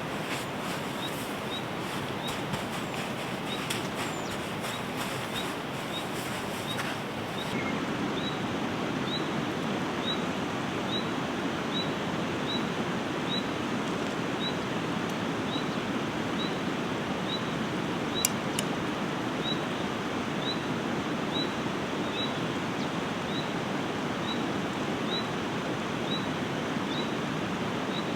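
Steady rushing water noise that grows fuller and a little louder about seven seconds in. From then on a faint high chirp repeats slightly more than once a second, and there is a single sharp click about two thirds of the way through.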